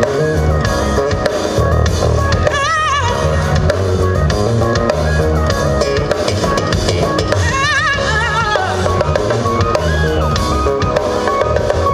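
Recorded music with a steady drum-kit beat and heavy bass, with a wavering held melody note about three seconds in and again about eight seconds in.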